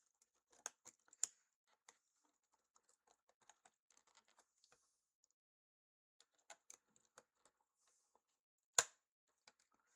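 Faint, scattered clicks and taps of small iPhone parts and tools being handled during disassembly, with one sharper click about nine seconds in.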